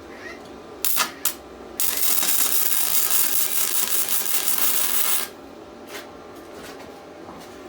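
Two sharp metallic clicks, then about three and a half seconds of loud, steady, harsh noise from work on the metal cylinder.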